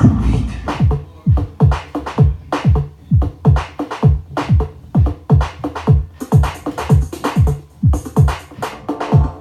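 Electronic dance music with a steady four-on-the-floor kick drum at about two beats a second, played through a Pioneer DJM-750MK2 DJ mixer to demonstrate its sound effects. A brighter hissing layer comes in briefly about six seconds in and again near the end.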